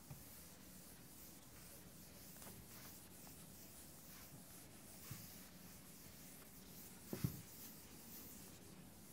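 Board duster rubbing across a chalkboard, wiping it clean in faint repeated swipes. A couple of light knocks land about five and seven seconds in, the second the louder.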